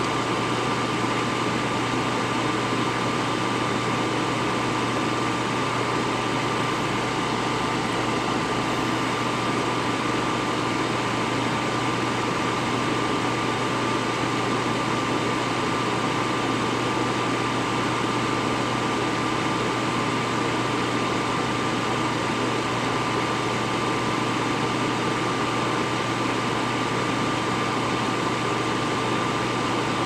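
Steady fan whir with a thin, high, unwavering whine, even and unchanging throughout.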